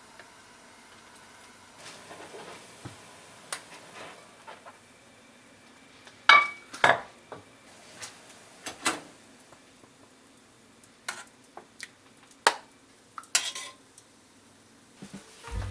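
A metal ladle clinking and knocking against an aluminium pot while scooping boiled eggs in soy-sauce broth. Scattered sharp clinks over a faint steady background, the loudest two about six and seven seconds in.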